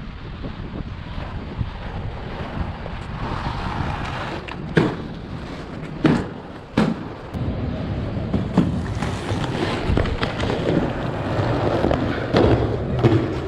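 Inline skates rolling on pavement, with sharp clacks of landings and rail contact, three strong ones about five, six and seven seconds in and lighter ones after, over steady wind rumble on the microphone.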